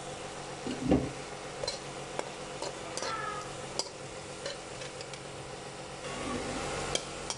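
Cubed chicken and chopped green onions sizzling in a karahi while a spatula stirs and scrapes them, with scattered sharp clicks of the spatula against the pan and a heavier knock about a second in.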